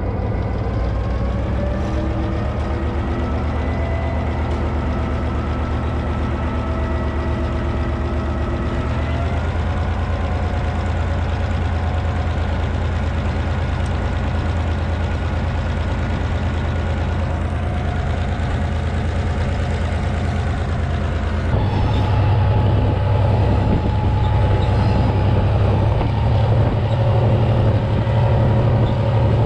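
Diesel train locomotive engine running, with pitched tones that rise over the first few seconds and then hold steady; it grows louder in the low end about two-thirds of the way through.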